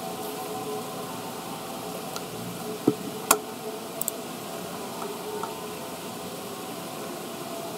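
Quiet room tone with a steady hiss. Two sharp clicks come about three seconds in, followed by a few fainter ticks.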